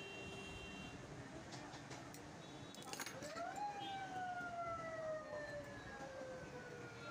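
A siren wail: about three seconds in, a tone rises quickly and then falls slowly and steadily for about four seconds. A few faint clicks come before it.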